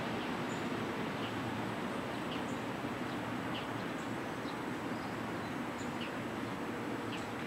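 Steady low outdoor background noise, with short, high bird chirps scattered about once a second.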